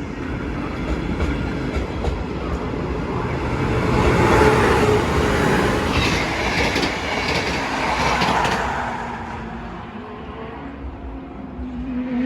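Double-deck passenger train hauled by an electric locomotive passing, its wheels clicking over rail joints. The sound builds to its loudest about halfway through and then fades as the train moves away.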